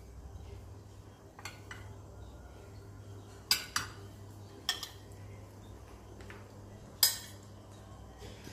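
A metal spoon clinking against a ceramic plate as rice is served out and eaten: a handful of separate sharp clinks, the loudest about three and a half and seven seconds in.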